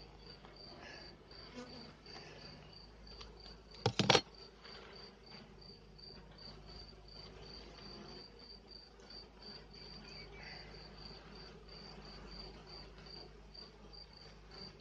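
A cricket chirps steadily, about four high chirps a second, over the faint low hum of honeybees at an open hive. About four seconds in comes a quick cluster of loud sharp clacks as the beekeeper works the wooden hive frames.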